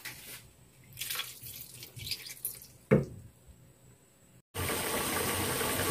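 Water poured into a hot frying pan of fried spice paste and bamboo shoots, splashing and hissing in uneven bursts, with a single sharp knock about three seconds in. After a brief break, a steady hiss of the pan cooking.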